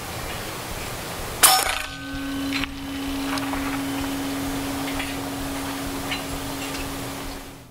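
A single shot from a Hatsan Hercules .357 PCP air rifle about a second and a half in: a sharp crack with a short metallic ring. A fainter click follows about a second later, then a steady low hum over wind noise.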